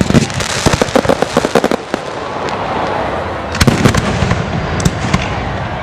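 Aerial fireworks bursting: a rapid run of crackling reports in the first two seconds, then another cluster of bangs about three and a half seconds in, over steady background noise.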